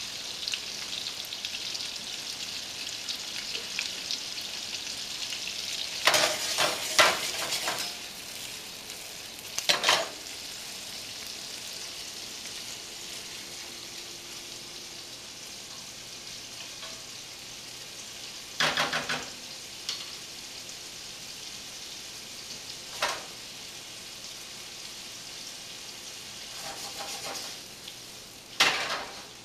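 Shrimp and scallops frying in garlic, oil and butter in a skillet, sizzling steadily, louder in the first several seconds. A wooden spoon stirring the pan makes a few sharp clacks now and then.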